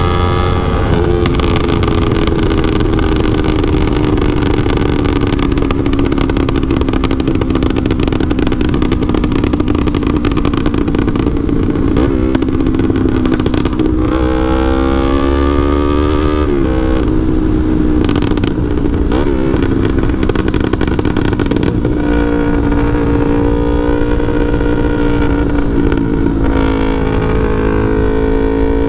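Yamaha R3's parallel-twin engine running through a full aftermarket exhaust while riding. The engine note sinks slowly for the first dozen seconds, climbs quickly in a hard rev about halfway, and drops sharply just after. It then holds a higher steady note and drops again near the end.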